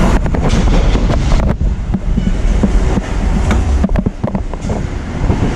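Motor scooter's small engine running with rattle as it rolls up at low speed. The low rumble drops off about a second and a half in, leaving uneven clatter and knocks.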